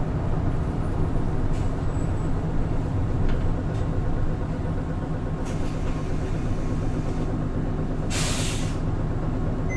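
Hino Blue Ribbon City Hybrid bus's diesel hybrid drivetrain running steadily, heard from inside the passenger cabin. About eight seconds in there is a short hiss of compressed air lasting about half a second.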